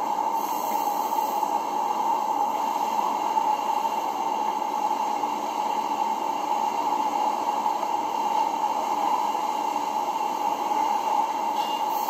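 Steady, even hiss-like noise with a stronger band in the middle of the range and no distinct events.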